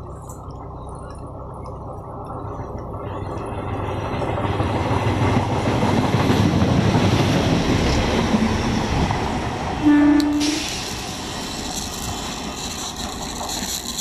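Indian Railways locomotive-hauled train approaching and passing at speed: a rumble that builds over several seconds and peaks as the locomotive goes by. About ten seconds in comes one short, loud horn blast, then the coaches rattle and clatter past.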